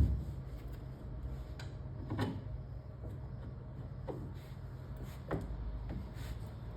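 Soft knocks and clunks of a mounting bracket and its bolts being handled and lined up against the Turnmaster Pro, a few separate taps spread over several seconds, over a steady low hum.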